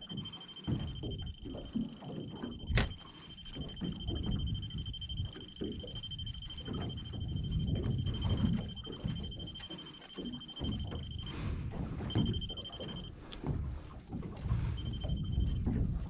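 A steady, high electronic alarm tone sounds over a low rumble of wind and water. It breaks off about eleven seconds in, then comes back twice for about a second each. There is a single sharp click about three seconds in.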